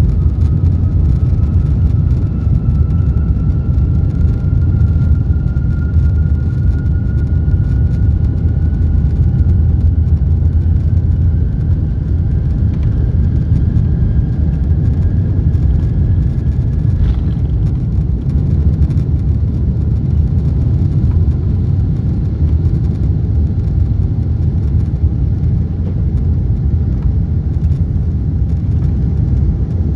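Boeing 747-8 takeoff heard from a window seat in the cabin: a loud, steady rumble of engines and rushing air. A faint whine slowly rises in pitch above it and cuts off a little past halfway.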